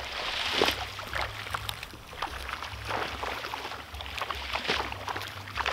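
Irregular water splashes and sloshing as a seine net is hauled through a shallow fish pond, over a steady low rumble.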